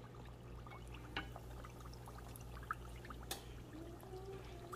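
Hot oil in a deep fryer sizzling with many small scattered crackles and pops as breaded chicken cutlets fry, over a low steady hum.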